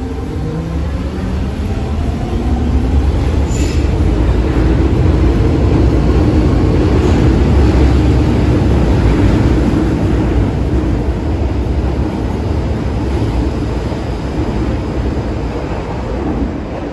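MTR Kwun Tong line M-train (Metro-Cammell electric multiple unit) pulling out of the station. Its motor whine rises in pitch as it accelerates, over rail and wheel rumble that swells to a peak about halfway through and then eases as the last car passes.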